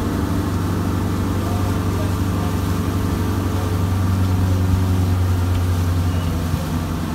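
A boat's engine running steadily under way, a low even hum, over a constant hiss of wind and water from the moving hull.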